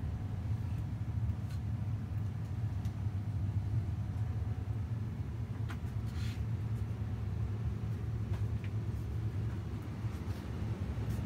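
Steady low hum, with a few faint clicks scattered through it.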